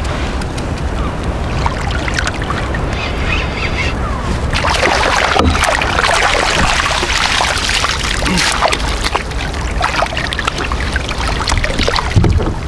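Water splashing and sloshing against the side of a kayak as a hooked sea bass is played to the surface. The splashing is heaviest around the middle, when the fish thrashes at the surface.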